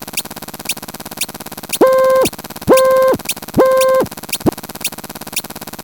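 A jumble of layered electronic sound effects: a loud buzzy beep sounds three times in a row, about a second apart, in the middle, over a constant fast clicking and short high chirps that drop in pitch.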